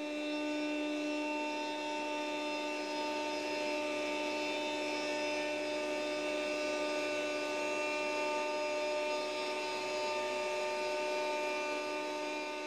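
The Genmitsu 710 W router spindle of a Genmitsu 4040 Pro Max CNC router running at a constant speed while its bit carves wood: a steady whine over the noise of the cut.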